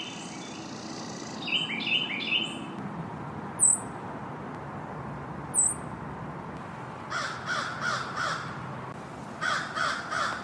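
Woodland bird recording: a hermit thrush song phrase of quick rising notes about one and a half seconds in, then two sharp, very high, thin notes, the loudest sounds, about three and a half and five and a half seconds in. Near the end come two runs of about four harsh cawing calls.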